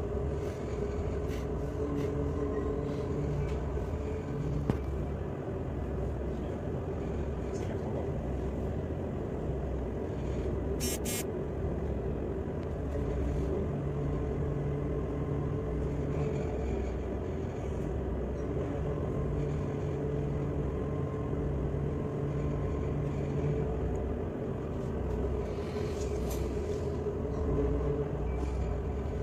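Tugboat's diesel engines running steadily, heard from inside the wheelhouse: a constant low hum with a few held tones, some fading in and out. A brief high-pitched electronic sound about eleven seconds in.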